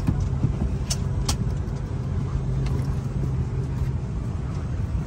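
Steady low hum and rumble of a parked Airbus A330-200's cabin air system, with two sharp clicks about a second in.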